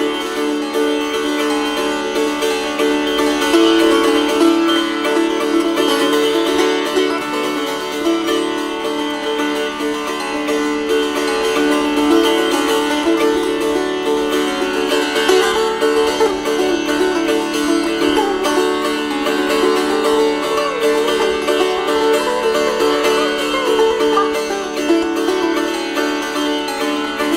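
Sitar played solo: a stream of plucked notes over the ringing drone and sympathetic strings, with notes sliding and bending in pitch through the middle.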